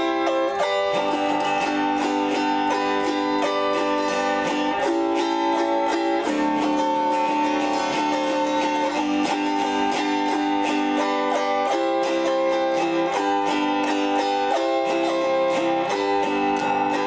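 Autoharp strummed with a pick, playing a slow tune in ringing chords. The chord changes every second or two under quick, regular strokes.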